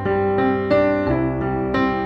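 Background piano music: notes and chords struck one after another about every half second over a sustained bass.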